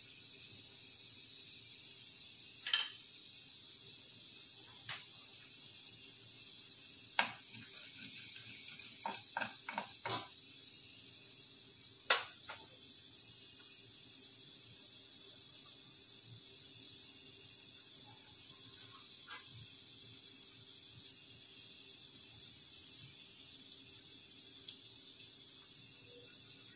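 Mustard and cumin seeds sizzling in hot oil in a clay pot, a steady hiss with a scattering of sharp pops as the mustard seeds begin to splutter, most of them clustered around ten seconds in.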